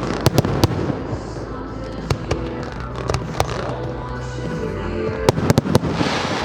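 Fireworks exploding in a display: a run of sharp bangs and cracks, with a quick volley of several bangs about five and a half seconds in, over accompanying music.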